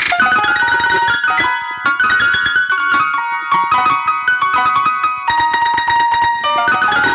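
Electric piano or keyboard playing a quick melody of bright, separate notes.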